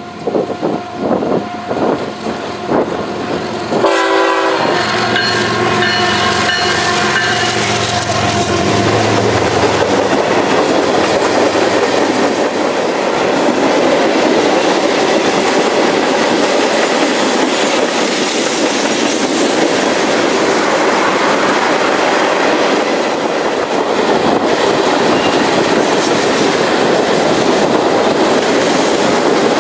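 A freight train passing close: the diesel engines of its GE ES44AC-led locomotives run by in the first seconds, with a brief pitched blare about four seconds in. After that comes the steady rumble and rattle of freight cars rolling past on the track.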